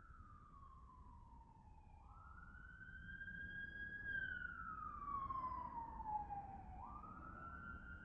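Emergency-vehicle siren wailing: a single tone sliding slowly down in pitch, jumping back up about two seconds in and again near the end, growing louder toward the middle and then easing off.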